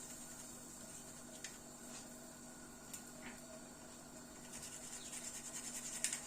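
Small garlic cloves being worked by hand on a kitchen counter: a few faint clicks, then, about four and a half seconds in, a run of quick, rhythmic scraping strokes that grows louder for about two seconds.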